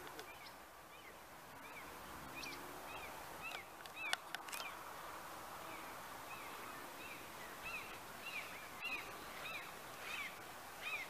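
Small birds chirping in short, quick calls, scattered at first and more frequent in the second half, over a faint steady outdoor hiss, with a few clicks about four seconds in.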